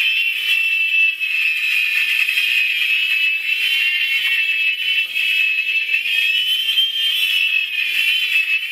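Unmodified $10 two-channel toy helicopter in flight: a steady high whine from its small electric motors and spinning rotors, wavering slightly in pitch.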